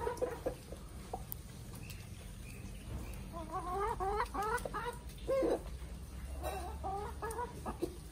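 Domestic chickens clucking in runs of short, quick clucks, with one louder call about five seconds in.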